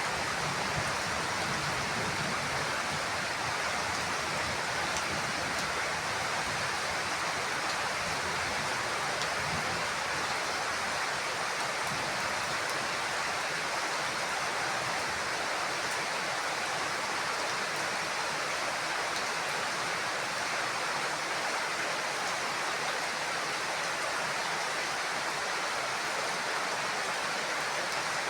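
Heavy rain falling steadily on a house roof, a dense, even hiss with no thunder.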